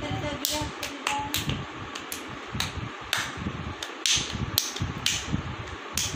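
An uneven run of sharp clicks and smacks, roughly two or three a second, over a steady fan hum.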